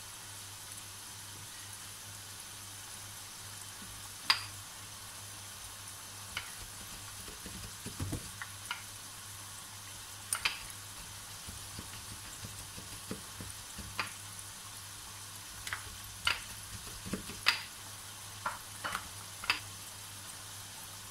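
Aloo samosas deep-frying in oil over a medium flame: a steady sizzle with scattered sharp pops and crackles from the oil.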